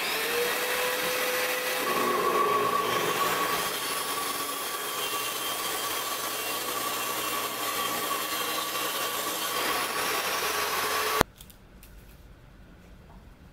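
Table saw running and ripping 18 mm plywood: a steady whine from the spinning blade over the noise of the cut. It stops abruptly about eleven seconds in, followed by the faint scratching of a pencil marking the plywood.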